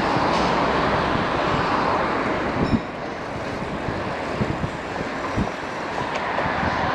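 Wind rushing over the action camera's microphone on a moving bicycle, mixed with the steady noise of road traffic. It eases off a little about three seconds in.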